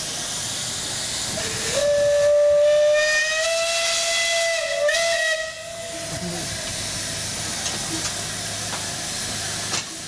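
Steam road roller's whistle blowing one long note of about four seconds that rises slightly in pitch, over a steady hiss of escaping steam.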